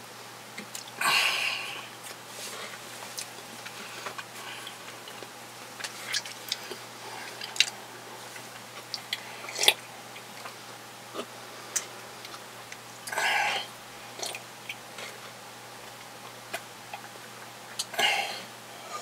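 Close-miked mouth sounds of a man drinking from a glass: small clicks and swallows as he sips, with three louder, short breathy sounds about a second in, about two-thirds through and near the end.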